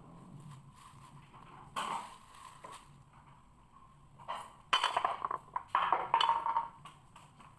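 Light knocks and clinks of hard objects, like dishes or utensils handled: one about two seconds in, then a quick run of them in the second half.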